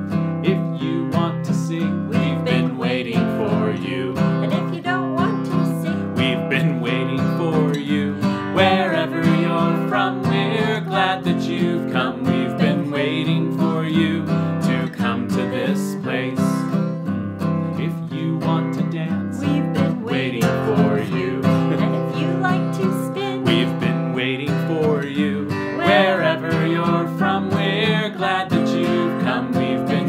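Acoustic guitar strummed steadily under a man and a woman singing a children's song.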